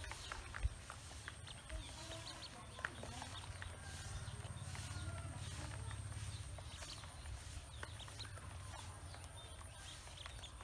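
Ducklings feeding from a plastic basin: many quick, irregular clicks and taps of their bills on the grains and the plastic, with small calls among them. A low rumble swells up in the middle.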